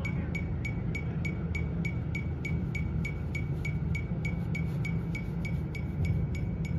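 Metronome clicking at a fast, steady rate, about five clicks a second, over a steady low rumble.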